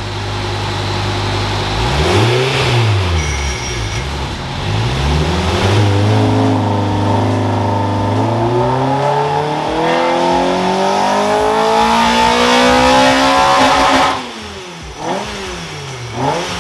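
Toyota 2ZZ-GE 1.8-litre four-cylinder in a swapped MR2 Spyder, running on a hub dyno during tuning. It idles and is blipped twice, then the revs climb steadily under load for about eight seconds in a dyno ramp run. The revs cut off sharply, and the engine takes two quick blips as it settles.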